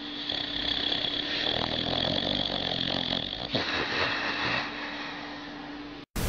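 Sleeping boxer dog snoring: one long drawn breath, then a shorter one about three and a half seconds in. A loud hiss of static comes in right at the end.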